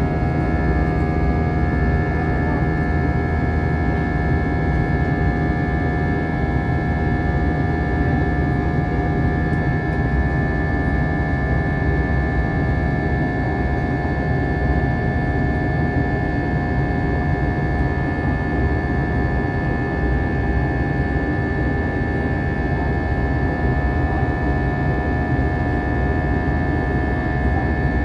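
Cabin noise of an Airbus A321-200 in flight, heard from inside the cabin: a steady, loud rumble of jet engines and airflow with several constant whining tones above it, all unchanging throughout.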